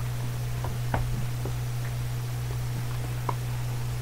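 A steady low hum with a few faint clicks or taps, about one, one and a half, and three and a quarter seconds in.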